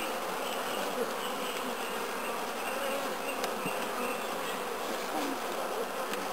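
Honeybees buzzing steadily, the massed hum of a colony in a hive opened for inspection, with bees crowding the frame being lifted out and put back.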